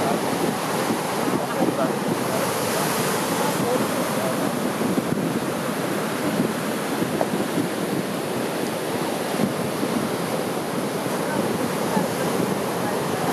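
Heavy storm-swell surf (a ressaca raised by a passing cold front) breaking close to shore and washing back over the sand, a steady rushing of water.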